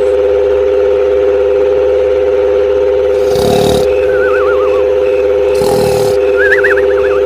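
Steady, high-pitched hum of a small motor, as of a miniature tractor's motor running. Twice, about two and a half seconds apart, a short hissing rattle breaks in. Warbling, bird-like trills are heard twice.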